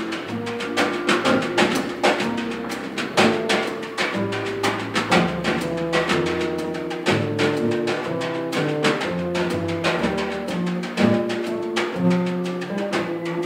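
Live small-group jazz: two double basses played pizzicato, with a drum kit keeping time.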